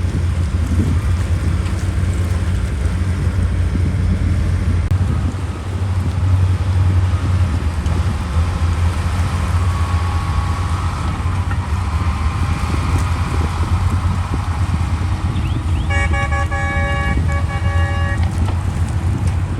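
Heavy earthmoving machinery running with a steady low engine rumble. Near the end, a vehicle horn sounds in a quick series of short toots.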